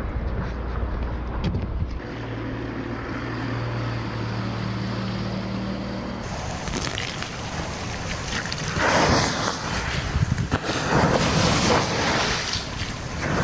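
Outboard motor of a small aluminium boat running steadily as the boat pulls away. About six seconds in, the sound changes to water being poured onto a hot ash bed, which hisses in several loud surges.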